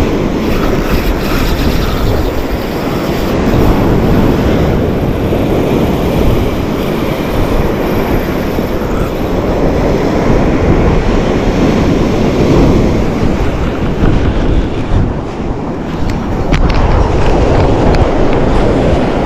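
Ocean surf washing onto the beach, with wind blowing across the microphone: a loud, steady noise that swells and eases.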